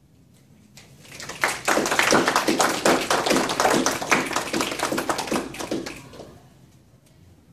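A small audience clapping. The claps start about a second in, quickly thicken into steady applause, and die away about six seconds in.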